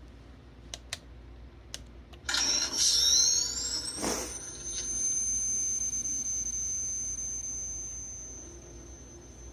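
Upgraded electronic sound board in a Spirit Halloween proton pack playing its power-up effect. After two small clicks, a rising electronic whine starts about two seconds in, with a short burst about four seconds in, then settles into a steady high whine that fades near the end.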